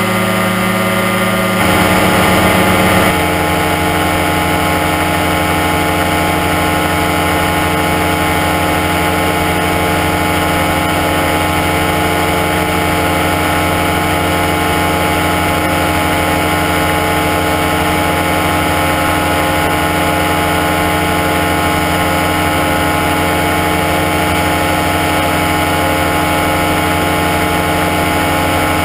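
Aerochute powered parachute's engine and propeller running steadily in flight. About two seconds in, the engine note shifts and briefly grows louder, then settles back to an even run.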